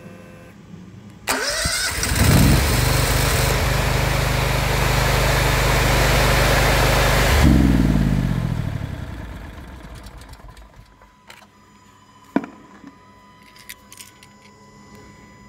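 Honda iGX800 V-twin engine on a generator started by remote control: the electric starter cranks about a second in, the engine catches and runs steadily for about five seconds, then is shut off and winds down to a stop. A single sharp click follows near the end.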